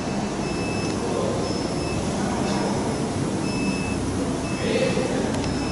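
Steady factory-hall machinery noise with a short, high electronic beep repeating roughly once a second.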